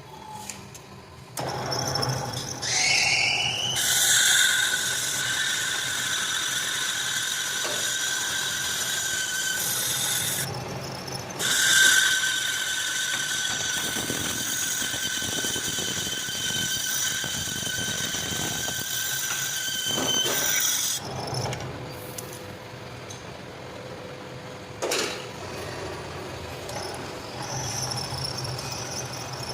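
High-pitched metallic squeal from metal machining. It starts about a second and a half in, rises in pitch, then holds steady. It breaks off briefly about ten seconds in, resumes, and stops about 21 seconds in, followed later by a single sharp click.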